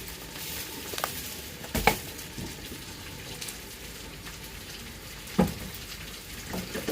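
Chicken pieces sizzling as they fry in a pan, a steady hiss. Two sharp knocks stand out, about two seconds in and again past five seconds.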